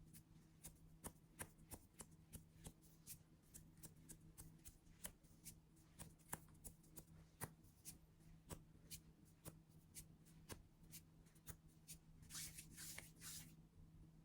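Faint, irregular clicks, a few a second, over a low steady hum, with a short patch of denser crackling near the end.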